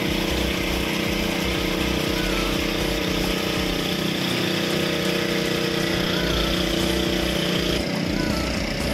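A steady motor hum with several fixed pitches, over an even hiss of water splashing from dome-shaped fountain jets. Both thin out suddenly about eight seconds in.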